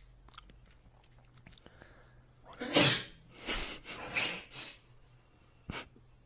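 A person sneezes loudly about two and a half seconds in, followed by a few shorter, quieter noisy bursts over the next second and a half. A short click comes near the end.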